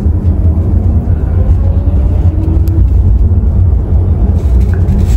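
Steady low rumble of a moving VinFast VF8 electric SUV, heard from inside the cabin.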